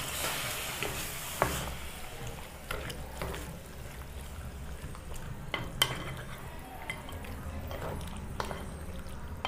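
Spoon stirring chicken in a pot of curry just after water is added, knocking against the pot several times. A sizzling hiss fades out in the first second or so.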